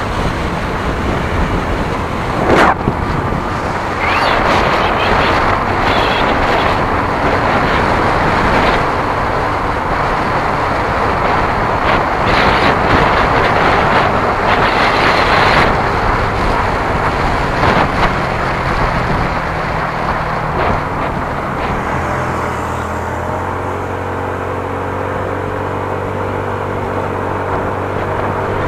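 Wind and road noise from a vehicle travelling at speed. A steady low engine hum comes in about two-thirds of the way through.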